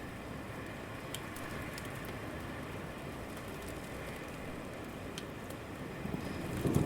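Steady rain falling over a city at night, a soft even hiss with scattered sharp drips. About six seconds in, a low rumble begins to swell.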